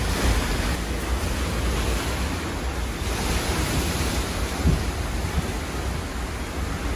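Hurricane wind rushing steadily through an open screen door. Gusts buffet the microphone in an uneven low rumble.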